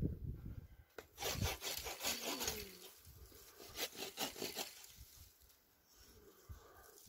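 Handling noise on the phone's microphone: quick scratchy rubbing and scraping in two spells, the first about a second in and the second about four seconds in, with quiet between and after.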